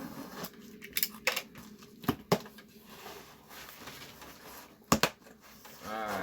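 Cardboard subscription box being opened and handled: scraping and rustling, with a few sharp clicks and knocks, the loudest a quick pair near the end.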